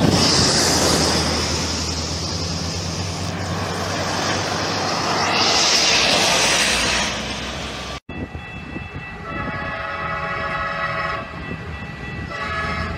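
Loud road and wind noise as a semi-truck tractor passes close by, rising briefly in a hiss. After a cut, a train's multi-note air horn sounds at a grade crossing: one long blast of about two seconds, then another starting near the end.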